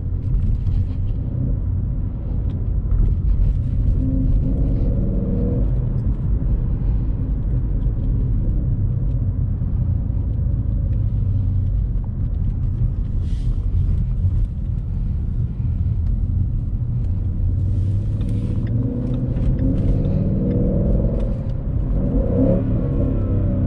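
Ford Mustang GT's 5.0 V8 running while driving, heard from inside the cabin as a steady low rumble. The engine note rises and falls with the throttle, most clearly near the end.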